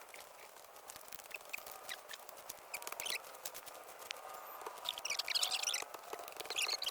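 Birds chirping and twittering in several short, high bursts, with scattered faint clicks.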